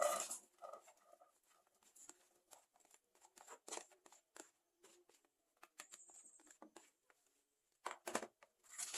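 Scattered light clicks, ticks and scrapes of food being handled and prepared, with a few louder knocks about four seconds in and near the end.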